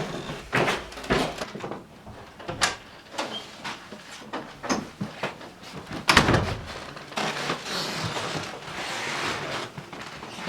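Scattered knocks and thumps of things being handled and moved about, the loudest about six seconds in, followed by a few seconds of rustling.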